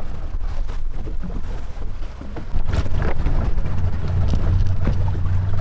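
Wind buffeting the microphone on an open boat: a heavy low rumble under a steady hiss, which steps up louder about two and a half seconds in.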